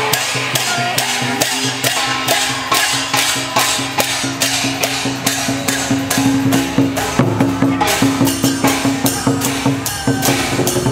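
Music with a steady beat of percussion strikes, about three a second, over sustained low tones.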